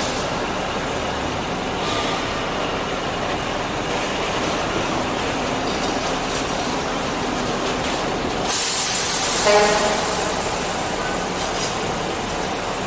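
Steady city street traffic at a busy intersection. About eight and a half seconds in, a sudden loud hiss cuts in with a whining tone under it and fades over a second or two.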